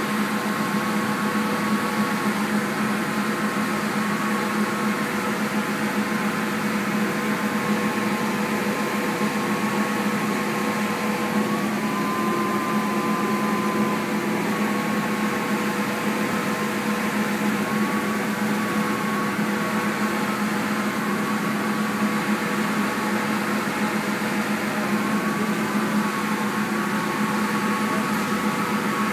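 Steady hum and rush of air from a paint spray booth's ventilation, with a faint whine that wavers slightly in pitch.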